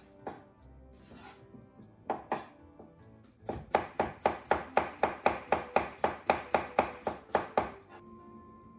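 Chef's knife slicing a cucumber on a wooden cutting board. First come a few separate cuts, then a quick, even run of about four chops a second for some four seconds as the cucumber is cut into thin slices. Background music holds a steady note near the end.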